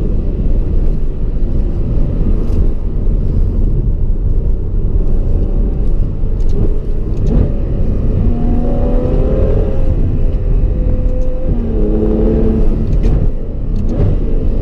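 Ferrari 812 Superfast's naturally aspirated V12 running loud through its exhaust, revving up and down twice in the second half, with several sharp exhaust pops.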